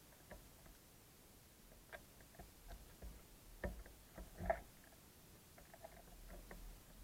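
Small birds, sparrows among them, pecking and hopping on a wooden bird feeder: scattered light taps and clicks, with two louder knocks a little past halfway.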